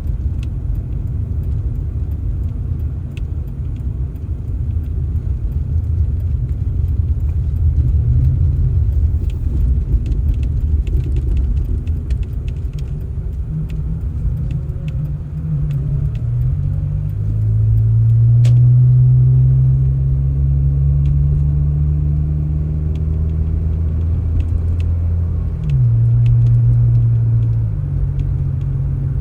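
A motor vehicle's engine running with a low rumble. Past the middle its pitch rises and holds, drops briefly near the end, then comes back up, with scattered light clicks.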